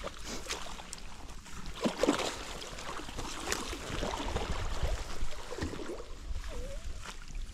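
Water sloshing and splashing irregularly, with scattered short knocks.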